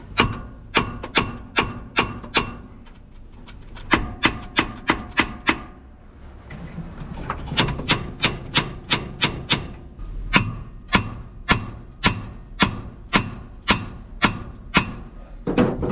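Hand ratchet clicking in quick runs of evenly spaced clicks, about two to three a second, as nuts are wound off the cylinder-head studs of a Mack Magnadyne inline-six. The runs break off briefly a couple of times as the ratchet moves to the next nut.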